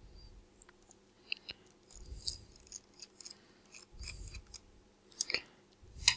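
Small screwdriver driving screws into a lens's bayonet mount: scattered light metallic clicks and ticks, with soft handling bumps about every two seconds.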